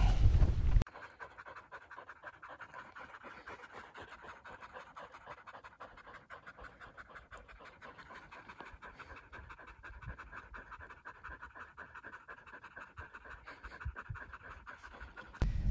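Two pointing dogs panting rapidly and steadily as they rest, hot after working in the heat. A loud rumbling noise fills the first second and returns just before the end.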